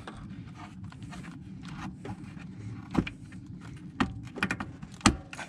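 Sharp clicks and knocks of lines being pushed back into their retaining clip beside a pickup's radiator: single knocks about three and four seconds in, then a quick cluster and a loud click near the end.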